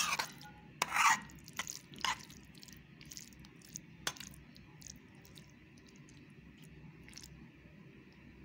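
Spoon stirring and scraping through thick curd rice in a steel vessel, with light clinks against the metal. The scrapes come close together in the first two seconds, then only a few scattered taps follow.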